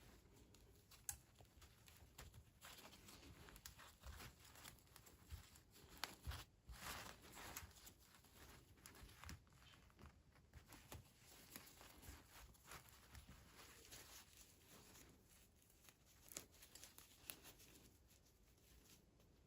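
Faint crinkling and rustling of unboxing packaging, with scattered light clicks from small plastic toy pieces being handled; the rustle is a little louder about six to eight seconds in.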